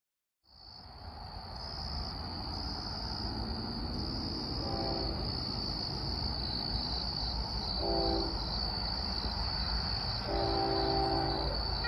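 Crickets chirping in a steady high trill while an approaching Union Pacific diesel locomotive sounds its horn three times: two short blasts, then a longer one. Under them a low rumble grows as the train comes closer.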